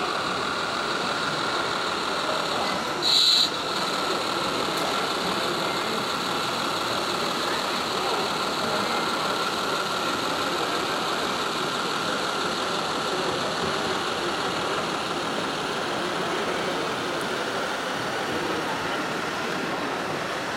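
Steady exhibition-hall din with a radio-controlled model truck's engine sound running under it, and one brief, loud, high-pitched blast about three seconds in.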